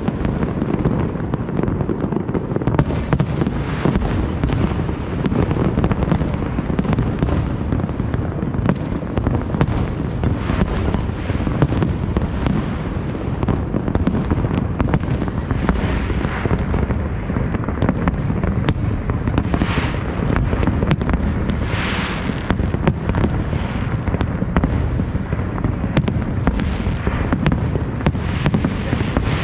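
Fireworks display: a dense, continuous rumble of shell bursts, with many sharp cracks. A hissing rush stands out about three-quarters of the way through.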